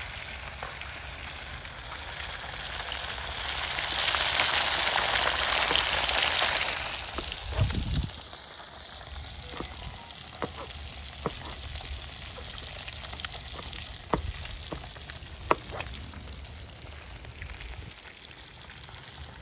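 Food frying in hot oil, a steady sizzle that swells loudest for a few seconds. A low thump comes about eight seconds in, followed by a scattering of sharp knife clicks on a board as pumpkin is shredded.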